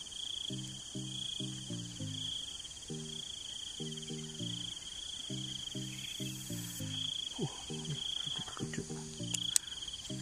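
Insects chirring in a steady pulsing trill, over background music with a repeating falling figure of low notes. Two sharp clicks near the end.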